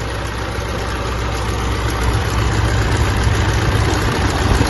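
Mitsubishi L200 Triton's 3.2 L four-cylinder turbodiesel idling with a loud, continuous rattle from a slack timing chain slapping. The chain has stretched so far that the tensioner can no longer take up the slack. The sound gets a little louder about two seconds in.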